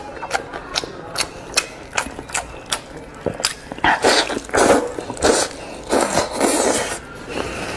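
Close-up wet eating sounds: a quick run of sharp lip smacks and chewing clicks, then louder slurping and sucking bursts as a bite is taken from a soft, sauce-covered chunk of braised meat about four seconds in.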